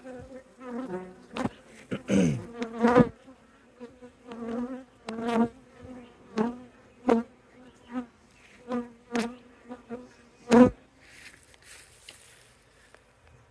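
Honey bees buzzing around the microphone: a steady drone, with single bees flying past close and loud again and again, one dropping in pitch about two seconds in. Sharp clicks and knocks come now and then.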